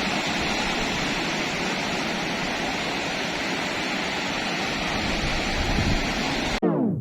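Steady rush of sea surf with wind on the microphone. Near the end it cuts off abruptly into a short falling sweep as electronic music begins.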